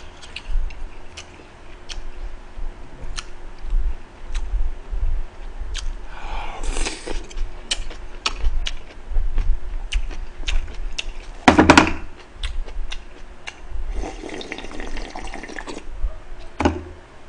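Close-miked eating sounds: chopsticks clicking against plates and bowls, chewing and wet mouth sounds, with a few louder wet stretches about six seconds in, just before twelve seconds and around fourteen seconds. Near the end the soup bowl is lifted for a sip of broth.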